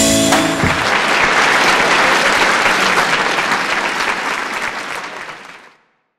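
A closing musical chord rings briefly, then many people applaud; the clapping fades out near the end.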